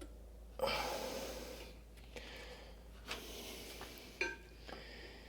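Light metal clinks and taps of motorcycle brake pads being worked into the rear brake caliper by hand, with a brief rushing noise about half a second in and a few sharp clicks later.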